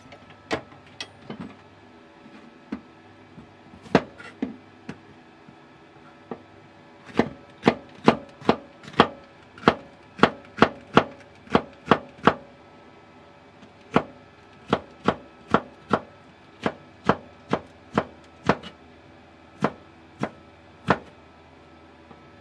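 Kitchen knife chopping green pepper on a wooden cutting board: sharp single knocks, a few scattered ones first, then a steady run of about two a second with a short pause in the middle.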